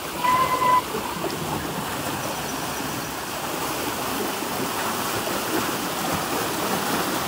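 Water rushing steadily out of a canal culvert into a brick-lined channel, growing slightly louder toward the end. A short, steady high tone sounds just after the start and is briefly the loudest thing.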